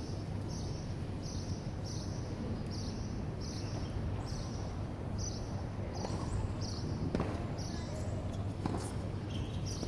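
Outdoor ambience at a hard tennis court: a steady low rumble with a high chirping that repeats about twice a second. Near the end come two sharp knocks about a second and a half apart, typical of a tennis ball bouncing on the hard court.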